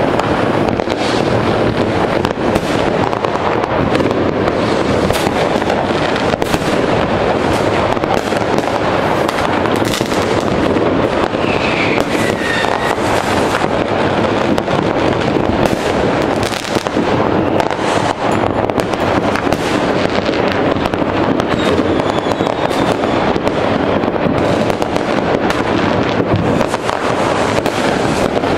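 Dense, continuous crackling and banging of many fireworks and firecrackers going off at once, with a faint falling whistle about twelve seconds in.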